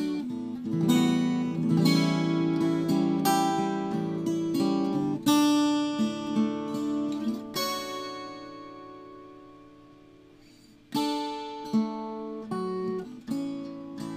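Solo acoustic guitar playing an instrumental Christmas medley, strummed and picked chords. About halfway through, one chord is left to ring and fade for around three seconds before the playing picks up again.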